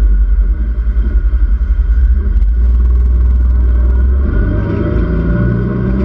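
Side-by-side UTV's engine running while driving, under heavy wind rumble on the microphone from the open cab. About four seconds in, the engine note becomes clearer and starts to rise as it speeds up.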